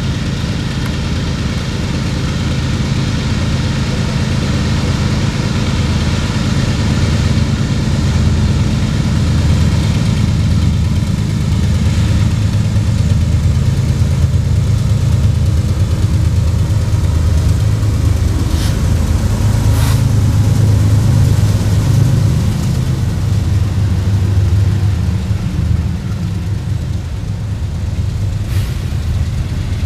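Diesel-electric freight locomotives pulling away under power, a heavy low engine drone that grows louder as they draw near and pass, then eases as the train's cars roll by. A few short sharp clicks, from wheels on the rails, come about two-thirds of the way through and again near the end.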